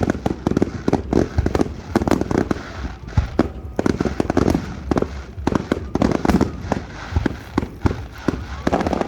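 Fireworks going off: a dense, irregular run of sharp bangs and crackling pops, many overlapping.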